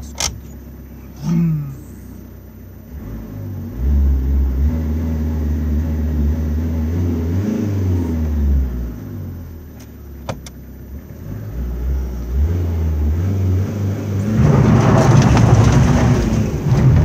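Opel car engine heard from inside the cabin, its revs climbing as the car accelerates, easing off, then climbing again. Near the end it becomes a louder, rougher rush. A couple of brief sharp clicks come near the start and about two-thirds of the way in.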